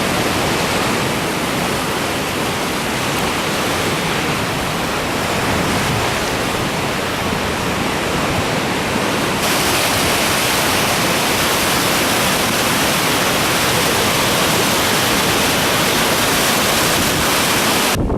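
Heavy surf on a storm-roughened sea: a steady, loud rush of breaking and churning water, which turns brighter and hissier about halfway through.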